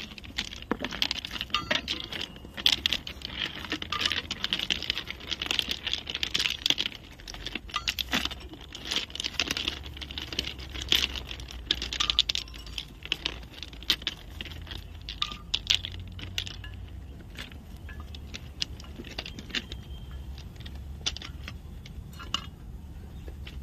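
Track ballast stones clinking and scraping against each other as they are cleared by hand from around a rail joint. A quick run of sharp clicks thins out after about thirteen seconds into scattered single clinks.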